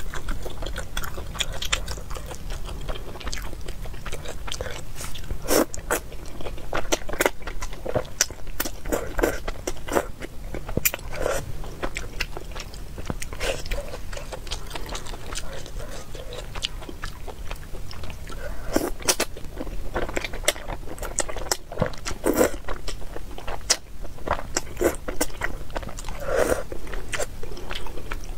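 Close-miked mouth sounds of a person chewing thick noodles in chilli oil: irregular wet smacks and clicks, with now and then a louder bite.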